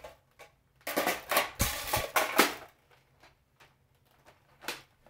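Plastic Nerf Fortnite blaster being reloaded by hand: a quick run of clacks and knocks about a second in, with one heavier thump, as the magazine and stock go on, then a single click near the end.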